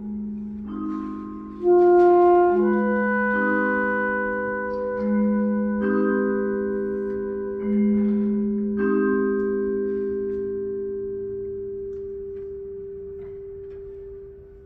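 Wind ensemble music in a quiet passage: pitched notes entering one after another with sharp attacks, each ringing on and slowly fading, building a sustained chord that dies away near the end.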